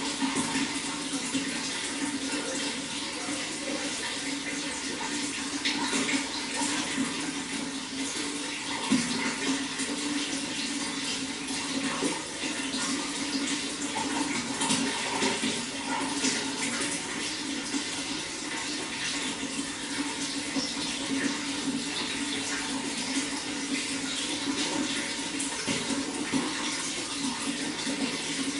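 Running water flowing and splashing steadily, with a constant rush and small irregular splashes.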